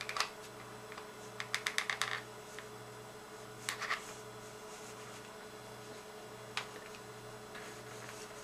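A hot glue gun being worked against a plastic model railcar: short clusters of light clicks and ticks, the busiest run about one and a half to two seconds in, over a faint steady hum.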